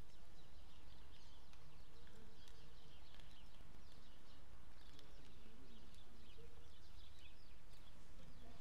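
Small birds chirping and twittering: many short, high chirps scattered throughout, over a steady low hum.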